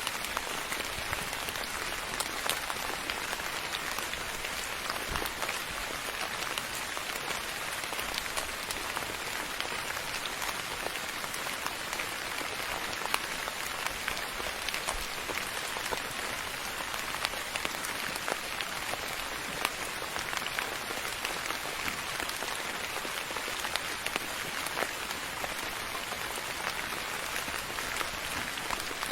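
Steady soft rain falling on a surface, a continuous hiss with many small, scattered drop ticks.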